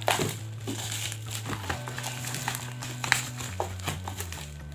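Bubble wrap crinkling and rustling as a wrapped item is handled and lifted out of a paperboard box, with scattered light clicks and taps against the box.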